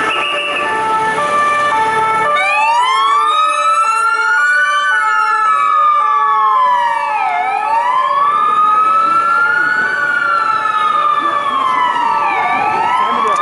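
Emergency vehicle sirens in city traffic: for the first two seconds a two-tone siren alternating between fixed pitches, then an electronic wail siren rising and falling slowly, about one sweep every five seconds, with a two-tone siren still sounding faintly behind it.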